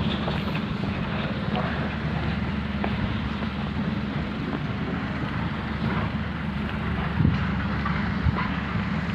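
Concrete plant machinery running steadily: a constant low engine-like hum with a few light knocks and clatters, the strongest about seven seconds in.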